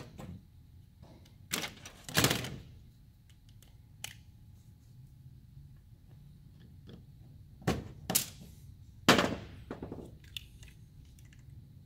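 Plastic housing parts of a Volvo I-Shift gear selector being handled and set down on a workbench: scattered knocks and clicks, a few louder than the rest, the loudest about nine seconds in.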